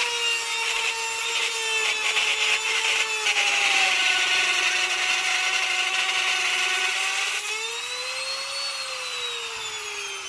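Lotus LTPR550X palm router running and cutting into a wooden board: a steady motor whine over a rasping cut, its pitch sagging slightly under load. About seven seconds in the cutting stops, the whine rises briefly as the bit comes free, then falls steadily as the motor winds down.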